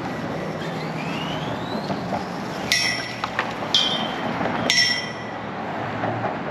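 Three sharp, ringing metallic clinks about a second apart, metal striking metal, over steady outdoor background noise.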